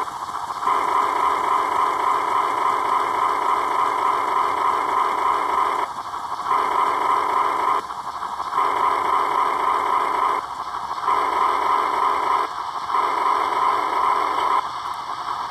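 Broadway Limited Paragon 4 HO scale PRR E6 4-4-2 model steam locomotive running on track rollers and slowing through its throttle steps, a steady hissing run sound that drops briefly about every two seconds.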